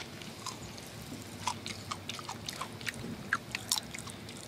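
Kool-Aid Popping Candy crackling in the mouth as it is eaten: a string of small, sharp, irregular pops and snaps from the carbonated candy dissolving, over quiet chewing.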